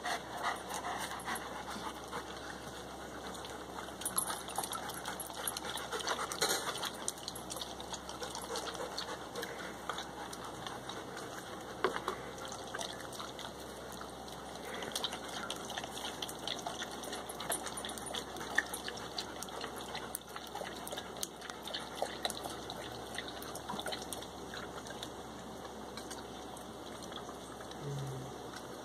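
German shepherds lapping water from a stainless steel bowl, a run of quick wet clicks and splashes.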